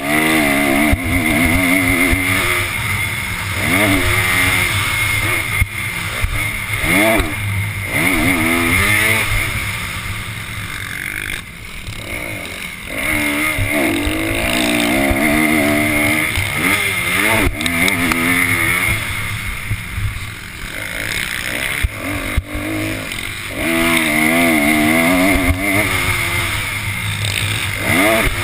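Dirt bike engine heard on board during a motocross race, revving up and falling off again and again as the rider opens and closes the throttle through turns and straights.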